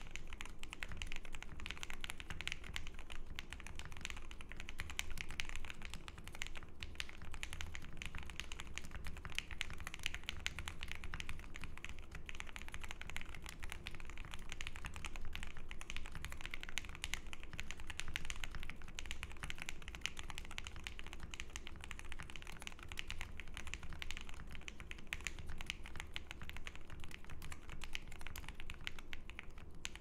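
Continuous typing on a mechanical keyboard (OwLabs Jelly Epoch, polycarbonate plate) fitted with lubed Durock Lavender switches and PBT keycaps: a dense, steady stream of keystrokes with a deep-sounding keystroke.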